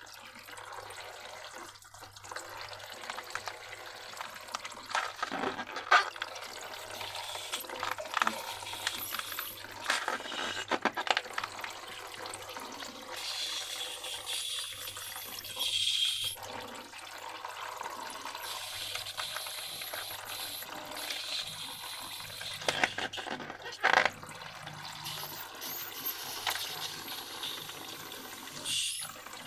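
Wet slime being worked by hand: continuous sticky, squishy liquid sounds with many small clicks and pops, and a few louder squelches along the way.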